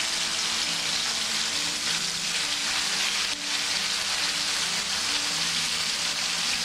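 Chicken breasts searing in piping-hot oil in a pan: a steady sizzle.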